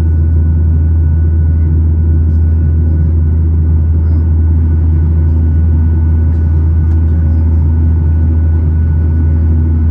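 Steady engine and airflow roar inside the cabin of a Boeing 737-900 after takeoff, with a strong low hum and a faint steady whine from its CFM56-7B engines.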